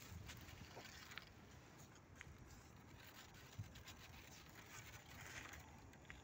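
Near silence, with a few faint scattered taps and scratches.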